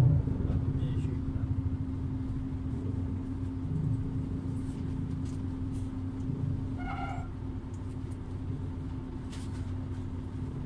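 Volvo Carrus city bus heard from inside, its engine and drivetrain running with a steady low drone and hum. A short high-pitched sound cuts in once, about seven seconds in.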